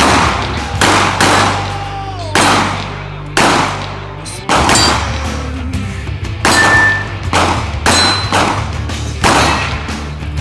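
A string of about ten .45 ACP shots from a Kimber 1911 pistol, roughly a second apart, with steel targets clanging when hit. Rock music plays underneath.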